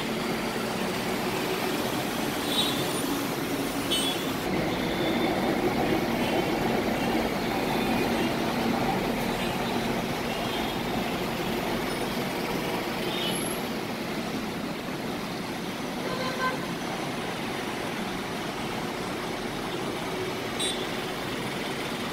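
Steady city road traffic of cars, buses and motorbikes, with a few short horn toots, two of them in the first few seconds. The traffic noise swells a few seconds in and eases off again.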